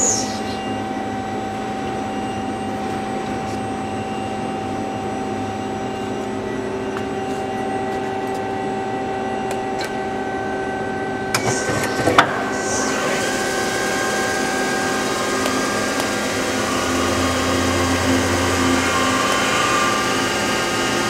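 1988 Mazak Quick Turn 8 CNC lathe running a program, its spindle turning at close to 3,000 RPM with a steady hum and whine. A short cluster of sharp clicks and a brief hiss comes about twelve seconds in.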